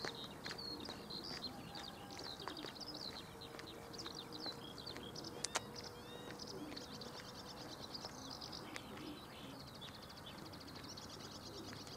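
Small songbirds singing, a dense mix of chirps and rapid trills throughout. A faint steady hum runs under the first half, and a few sharp clicks stand out, the loudest about five and a half seconds in.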